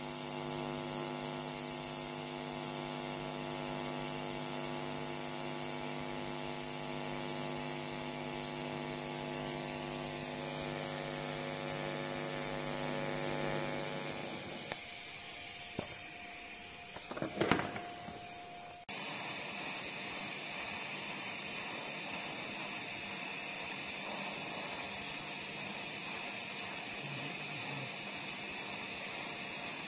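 Electric arc welding: a steady buzz over a hiss for about the first fourteen seconds, a brief crackle a few seconds later, then from about nineteen seconds a steady hiss of the arc without the buzz.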